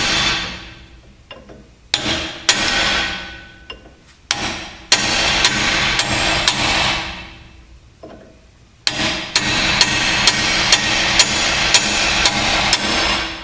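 Hammer blows on a chisel driven against a rusted leaf spring U-bolt nut, each strike ringing out as metal on metal, to split the seized nut. The blows come at an uneven pace at first. From about nine seconds in they settle into a steady run of two to three a second.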